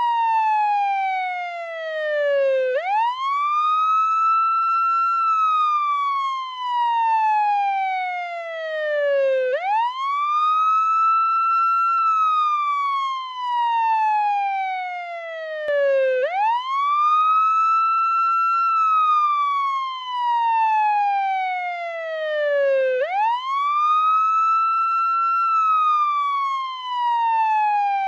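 Portuguese ambulance siren sounding its wail tone. Each cycle rises quickly, holds briefly at the top, then falls slowly before jumping back up, about four cycles repeating every six to seven seconds.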